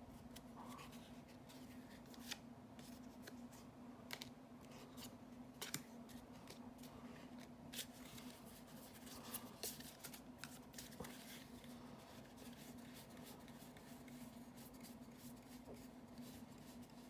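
Faint clicks and snaps of Magic: The Gathering trading cards being handled and flicked through, irregularly spaced, over a steady low hum.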